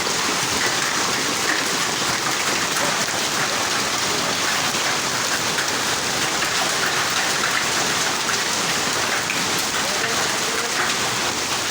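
Heavy rain mixed with hail, falling steadily, a constant downpour with many small hits.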